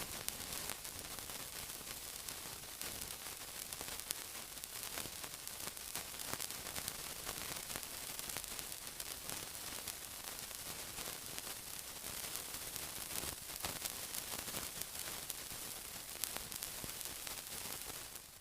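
Continuous sizzling: an even, steady hiss scattered with many small crackles and pops, which cuts off at the very end.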